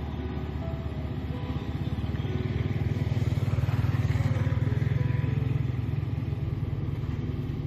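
Kubota DC-70 combine harvester's diesel engine running under harvesting load, a steady low hum that swells louder about halfway through, then eases off again.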